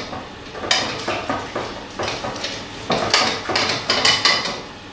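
Wire whisk beating thick choux pastry dough in a stainless steel saucepan, the wires scraping and clinking against the pan in uneven strokes, two or three a second. The egg is being beaten into the paste.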